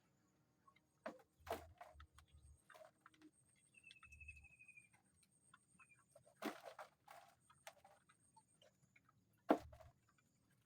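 Sparse knocks and taps inside a small bird aviary, the loudest near the end, with one short trilled chirp about four seconds in.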